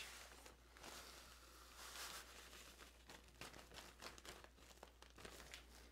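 Faint crinkling of a plastic zip-top bag being opened and tipped while crushed graham cracker crumbs are poured out of it, with small scattered ticks.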